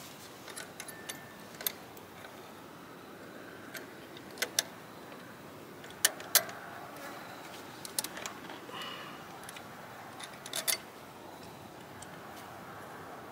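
Sharp, irregular metallic clicks and taps of a hand tool working on metal fittings of a diesel engine's fuel system, in small clusters, with the loudest pair about six seconds in.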